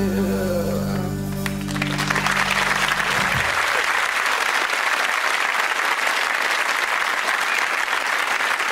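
The song's final chord rings out on acoustic guitar and band, then stops about three and a half seconds in. Audience applause swells up about two seconds in and carries on steadily.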